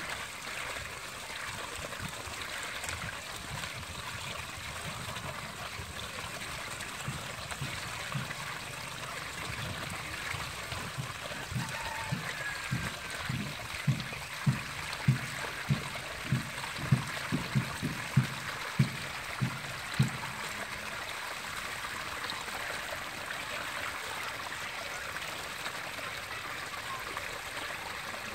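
Water trickling and running steadily down a mud channel and over a sheet chute into a basket fish trap. Partway through, a run of about a dozen low thumps follows over some six seconds.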